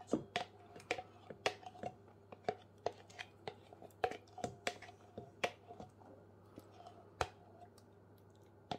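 Metal spoon scraping thick, chilled gravy out of a plastic measuring jug and knocking it into a stainless steel mixing bowl: a run of irregular clicks and taps, two or three a second, some with a brief ring, thinning out after about five seconds.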